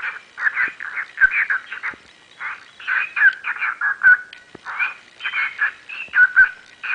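Cockatiels chirping and chattering in quick runs of short notes, with a brief lull about two seconds in.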